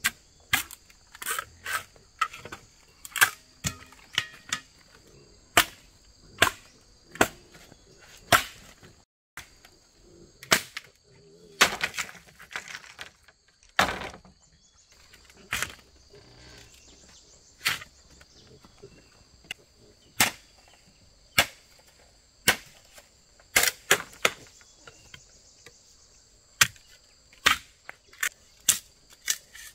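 Irregular sharp knocks or chops, roughly one or two a second, over a steady high drone of insects.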